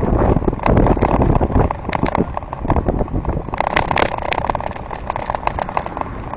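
Bicycle being ridden on a road: wind noise on a handlebar-mounted camera's microphone, with a dense rattle from the bike and mount over the road surface, strongest about four seconds in.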